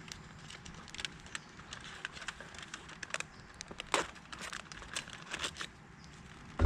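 Small wood campfire crackling, with irregular sharp pops and snaps; the loudest snap comes about four seconds in.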